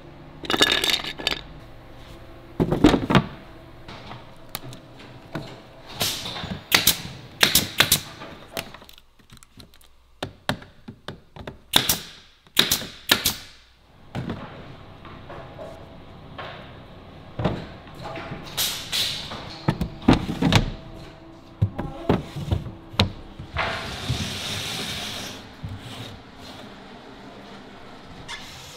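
A run of sharp knocks and clicks as plywood and MDF furniture panels and drawer parts are handled and fitted together, including a metal drawer pull being pressed into its recess. A short hiss comes in late on.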